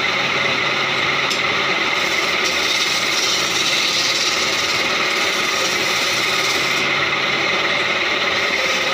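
Wood lathe running while a hand-held turning chisel cuts along a spinning wooden leg: a steady rasping hiss of the cut over the machine's low hum.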